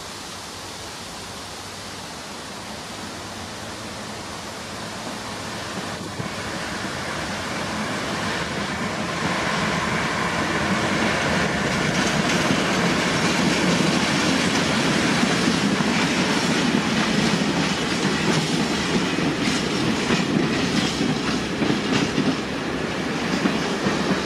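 6Dg diesel shunting locomotive with an empty tank wagon and two empty open coal wagons passing: its diesel engine grows steadily louder as it approaches. Over the second half the wheels clatter rhythmically over rail joints as the wagons roll by.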